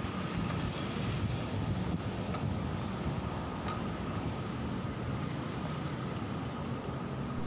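Steady road traffic noise from cars and other vehicles on the adjacent street, an even rumble with no single vehicle standing out.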